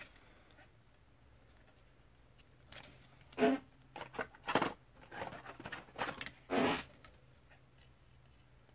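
A few short crackles and rustles of a plastic card sleeve and a foil pack wrapper as a trading card is handled, starting about three seconds in after a near-silent stretch.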